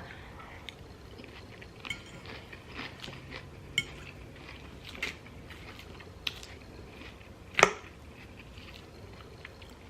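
Quiet handling sounds: scattered light clicks and taps, like utensils or items set against dishes on a table, with one sharper click about seven and a half seconds in.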